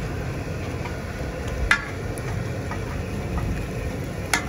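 Metal spatulas scraping and clinking on a large flat metal griddle while stir-frying pad Thai, with two sharp clinks, one a little under two seconds in and one near the end, and a few lighter taps between. A steady low rumble runs underneath.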